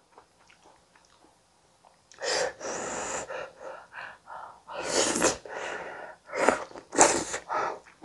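Close-up eating sounds of a person taking potato-tomato gratin. After about two seconds of quiet comes a run of short, hissy mouth sounds, such as slurping and chewing, several a second.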